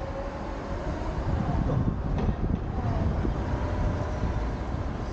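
Car driving slowly along a town street, heard from a microphone on its roof: a steady low rumble of road and engine noise with wind on the microphone, swelling a little partway through.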